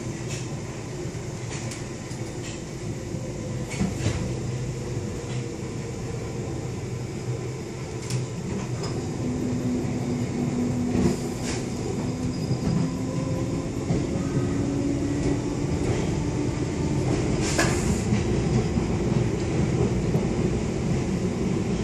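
London Underground District line train running between stations, heard from inside the carriage: a steady rumble of wheels on rail with a low tone that rises slowly in pitch, and now and then a sharp click or knock from the track.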